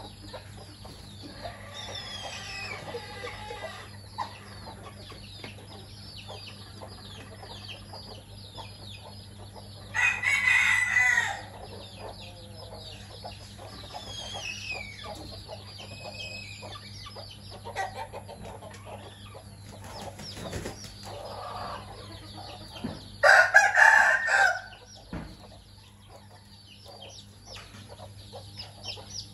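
Chicks peeping continuously in short high chirps, with hens clucking, and two loud crows of about a second and a half each, a rooster crowing twice.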